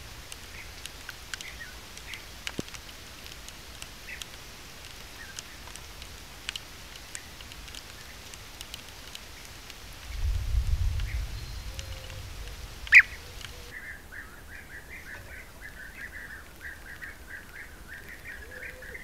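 European bee-eaters calling: faint scattered calls and small ticks at first, then, from about two-thirds of the way through, a quick, unbroken series of calls. A brief low rumble of wind on the microphone comes just past halfway, and a single sharp click follows a couple of seconds later.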